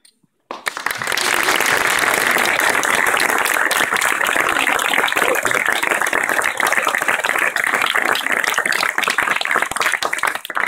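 A crowd applauding, a dense run of hand claps that starts about half a second in and dies away near the end.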